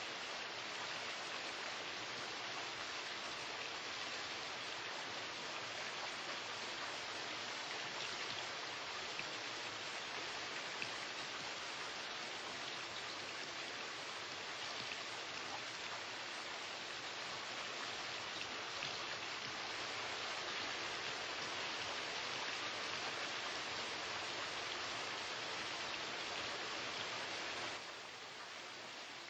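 Steady rush of water running along an indoor water channel. It drops to a quieter hiss near the end.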